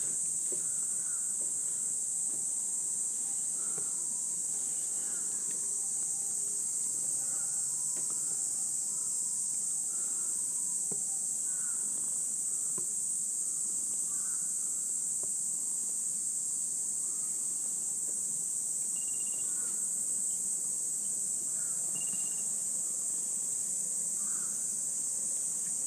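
Steady, high-pitched chorus of insects that runs on without a break.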